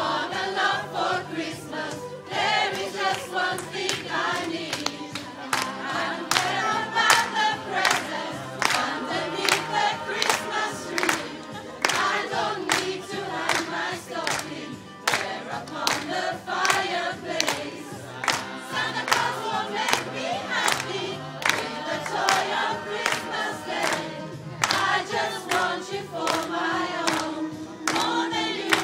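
A group of voices singing a Christmas carol together over instrumental accompaniment.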